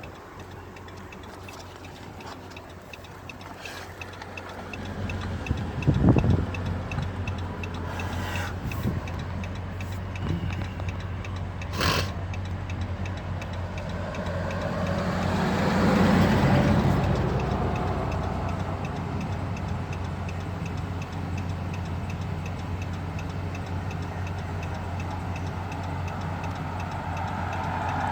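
Car engine idling inside the cabin, with a steady faint ticking over it. About halfway through, a vehicle passes on the highway, its rush swelling and fading away.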